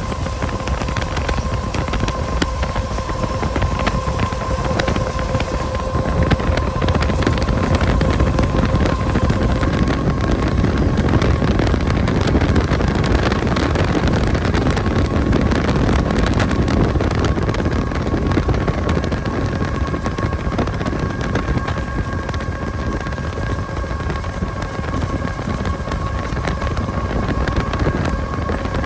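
Steady running noise of a vehicle moving at speed, a low rumble with a constant whine and wind buffeting the microphone.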